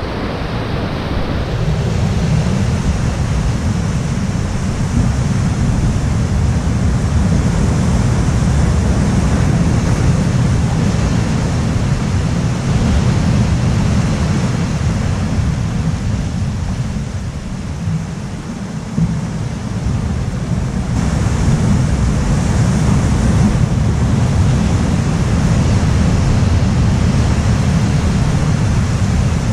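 Steady rush of ocean surf with wind buffeting the microphone, a heavy low rumble throughout.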